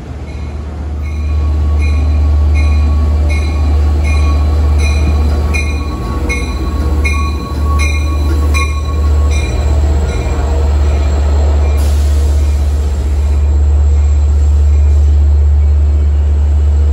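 LIRR DE30AC diesel-electric locomotive pulling a train of C3 bi-level coaches into the station: a deep, steady engine rumble with the locomotive's bell ringing rhythmically, a bit under two strokes a second. The bell stops about twelve seconds in, followed by a brief hiss.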